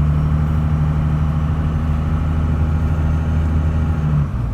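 A vehicle engine idling steadily, loud and close. About four seconds in, one steady tone within it stops and the sound drops a little.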